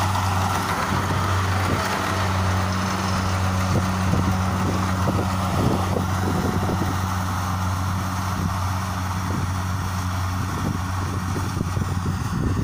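Kubota DC-60 rice combine harvester running steadily while cutting and threshing rice: a steady low engine hum with a rushing machinery noise over it.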